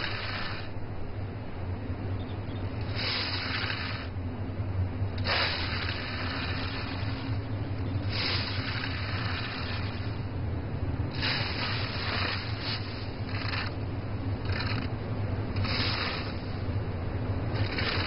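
A flat hand scraper pushing coarse sea-salt crystals across the hard earth floor of a salt pan, heaping the dried salt: about ten separate scraping strokes, one every one to three seconds, over a low steady hum.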